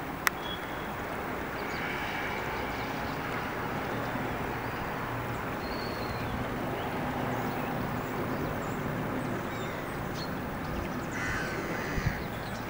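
Shallow stream water running steadily over stones, with a few faint bird calls. A sharp click about a quarter second in and two knocks near the end.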